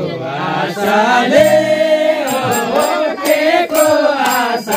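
A Nepali devotional bhajan sung in a chanting style. The melody rises, falls and holds on long notes.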